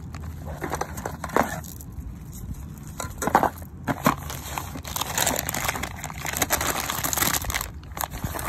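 Bubble wrap and paper packaging crinkling and rustling as it is handled, with irregular sharp crackles and clicks and a denser stretch of rustling past the middle.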